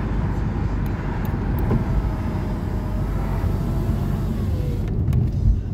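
Steady road and engine noise inside a moving car's cabin: a low rumble of tyres on tarmac with the engine running.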